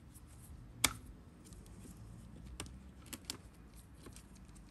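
Faint handling noise with a few sharp clicks, the loudest about a second in, from gloved hands working wires and plastic parts in the ball of a Dyson DC25 vacuum cleaner.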